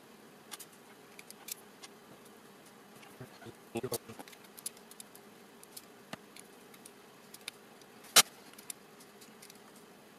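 Utility knife blade scraping and trimming small 3D-printed PLA parts, giving scattered light scrapes and clicks, with a short cluster about four seconds in and one sharp click about eight seconds in.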